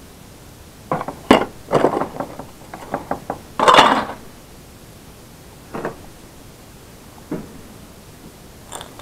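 Circuit boards and scrap electronic parts clattering as they are handled and set down on a workbench: a flurry of knocks and clinks in the first four seconds, the loudest just before four seconds in, then a few single knocks.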